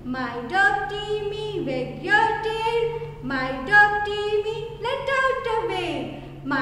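A woman singing a children's rhyme unaccompanied, in drawn-out notes that slide from one pitch to the next.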